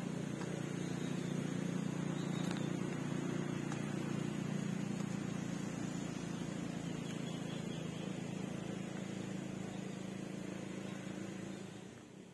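A small engine running steadily at a constant speed, fading out near the end.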